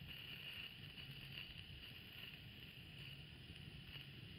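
Near silence: faint, steady outdoor background of low rumble and hiss, with no distinct sound standing out.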